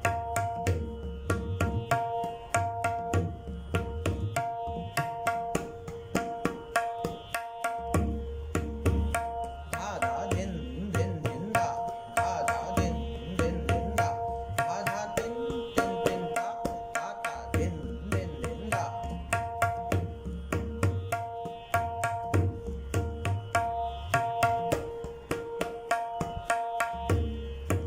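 Tabla pair playing the first kisma of teentaal: the basic theka filled out with extra bols in a quick, even stream of strokes. The deep bayan strokes drop out for a moment twice. A steady accompanying tone is held behind the strokes.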